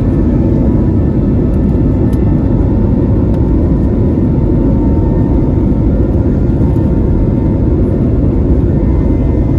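Airliner engines running during departure: a loud, steady rumble with a faint steady whine above it that does not change.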